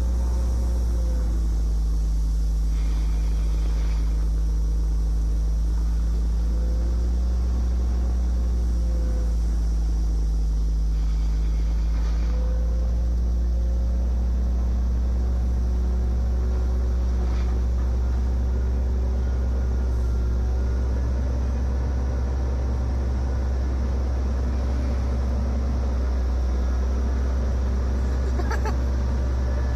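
Caterpillar 375L excavator's diesel engine running steadily under working load, heard from inside the cab. Its pitch dips and rises a little as the hydraulics swing the boom and dump the bucket.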